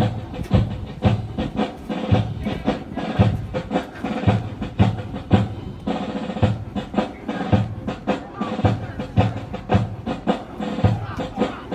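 Military band playing a march, with a steady drum beat of about two strokes a second under held instrument tones.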